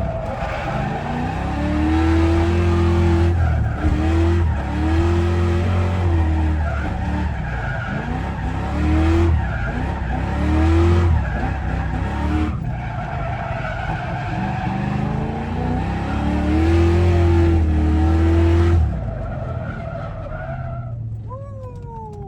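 Mustang engine pulling hard on track, its pitch climbing and dropping back several times as it revs out and shifts. It eases off near the end, where a short falling squeal is heard.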